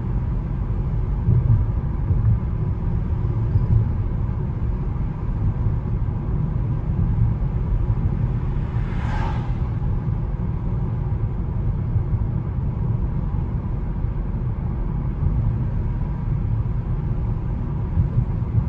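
Steady road and tyre noise with a low rumble, heard inside a 2021 Toyota Corolla's cabin cruising at about 40 mph, with a brief hiss about halfway through.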